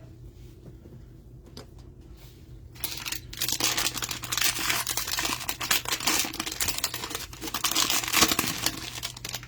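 Trading-card packaging being torn open and crinkled: a few light clicks, then about three seconds in a dense, loud crackling of wrapper that goes on for about six seconds.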